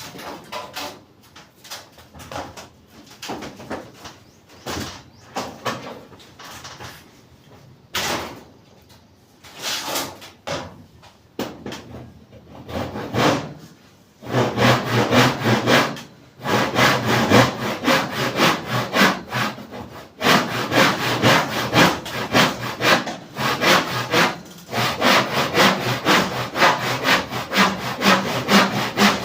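Hand saw cutting wood. Scattered strokes come first; from about halfway there is a steady run of quick back-and-forth strokes, broken by a few short pauses.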